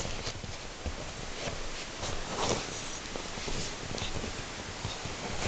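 Scuffling and a few soft, scattered thumps of paws on a leather couch as a cat swats at a West Highland white terrier.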